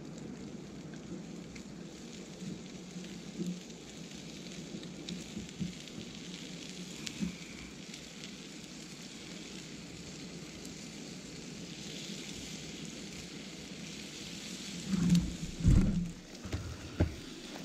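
Food sizzling in a frying pan over a driftwood campfire, a steady hiss with small crackles from the fire. Near the end come a few heavy thumps.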